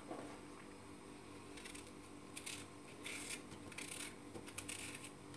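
Small kitchen knife paring and cutting a piece of food held in the hand, a series of short, irregular scraping rasps starting about a second and a half in.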